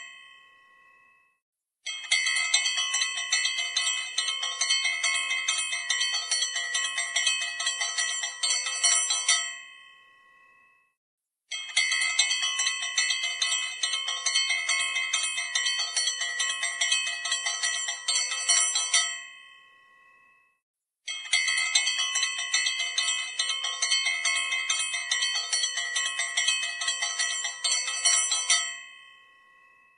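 Puja bell rung rapidly and continuously in three long runs of about seven to eight seconds each. Each run stops and leaves a fading ring before a short silence, then the ringing starts again abruptly.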